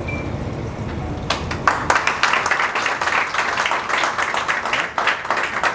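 An audience applauding, the clapping beginning about a second in and carrying on steadily.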